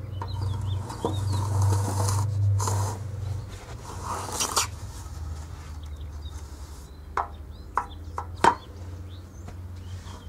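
Sand scraping and shifting as a metal straightedge is drawn across a sand bed to screed it level, with a few sharp knocks near the end. Small birds chirp in the background over a steady low hum.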